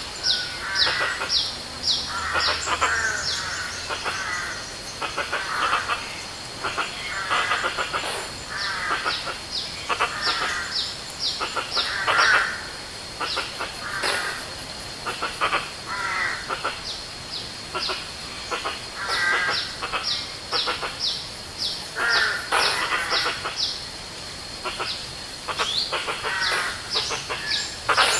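Several forest birds calling together: bouts of quick, high chirps that each slide downward, mixed with lower, rougher calls.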